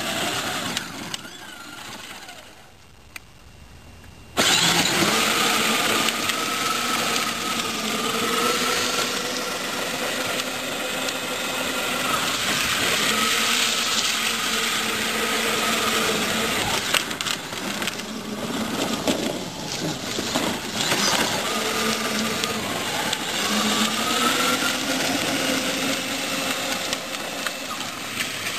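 A 24-volt children's ride-on Jeep's electric drive motors and gearbox whine as it drives on asphalt, the pitch slowly rising and falling with its speed over a steady hiss. The sound is quieter at first, then turns suddenly loud about four seconds in.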